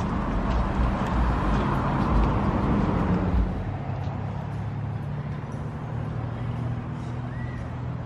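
A car engine running with a low rumble, cut off abruptly about three and a half seconds in and followed by a steady low hum.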